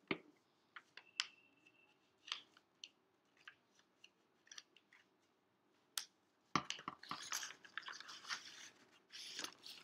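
Scissors making scattered short snips through a paper envelope, then a few seconds of paper rustling and crinkling as the envelope is handled and opened.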